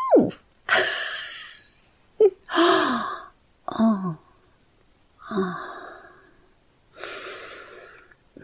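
A woman's breathy sighs, soft moans and gasps, about seven in a row, some falling in pitch, with no words.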